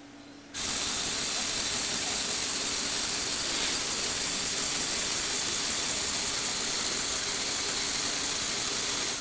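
Lego Technic motor and plastic gear train running steadily, turning the model on its turntable. It starts about half a second in and stops near the end.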